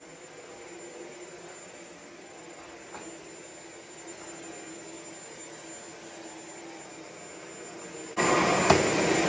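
Shark Ultralight Pet corded stick vacuum's motor running with a steady quiet hum and a thin high whistle, then about eight seconds in it jumps suddenly to full power with a loud rush of air and a sharp click.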